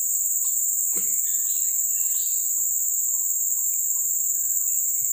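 Steady, high-pitched drone of a chorus of insects, with scattered short bird chirps and a faint single knock about a second in.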